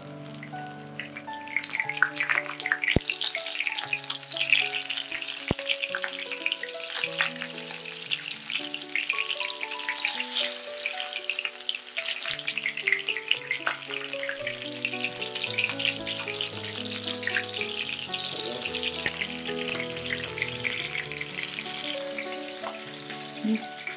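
Battered haddock fillets frying in hot oil in a pan: a steady crackling sizzle, heard over background music with a slow melody.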